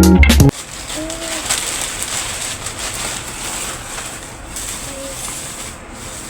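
Guitar background music cuts off suddenly about half a second in, followed by continuous crinkling and rustling of packaging as an online-shopping parcel is unwrapped.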